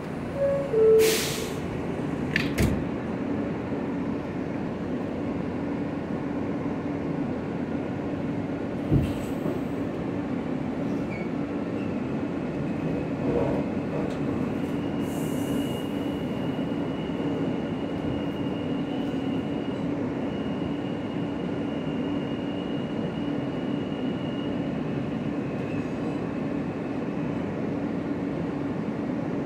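R160 subway train's two-note door chime and the doors shutting with two sharp knocks. The train then runs with a steady hum as it pulls slowly out of the station, and a thin high whine holds through the middle.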